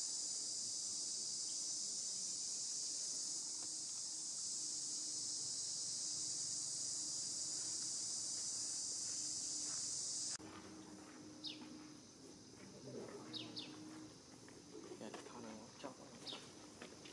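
Steady, high-pitched insect drone that cuts off suddenly about ten seconds in. It leaves quieter outdoor ambience with scattered short, faint chirps and small clicks.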